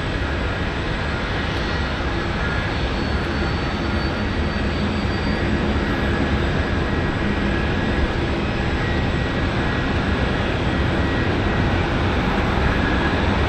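Jet engine noise from a landing Boeing 777: a steady rushing noise that grows slightly louder near the end.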